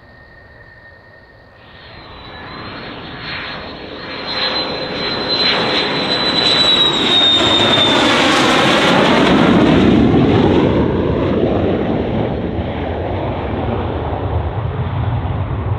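F-16 fighter jet's engine passing close by: a high whine and roar that build up over several seconds, peak as the whine drops slightly in pitch, then give way to a lower lingering rumble.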